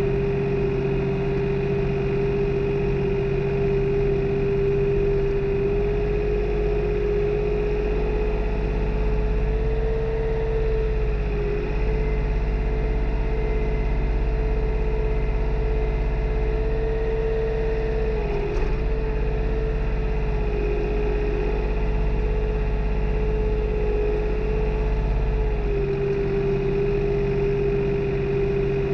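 New Holland tractor engine running steadily while tilling, heard from the driver's seat, its drone dipping in pitch briefly a few times. A deeper rumble joins about six seconds in and drops away a few seconds before the end.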